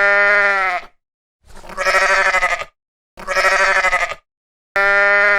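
Goat bleating four times, each call about a second long with short silences between. The middle two calls waver while the first and last hold a steady pitch.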